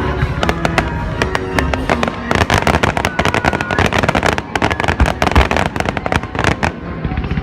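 Fireworks going off: a dense run of rapid crackling pops from about two seconds in, with a couple of deeper bangs in the middle, over music playing in the background.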